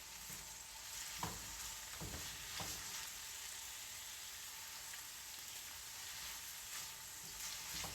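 Green beans and garlic sizzling steadily in a frying pan, with a few light knocks from stirring in the first few seconds.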